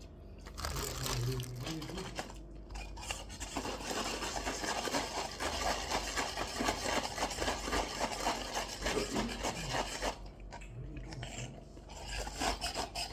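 Eating at the table: a dense run of rapid scraping and crunching, with cutlery against dishes. It stops about ten seconds in.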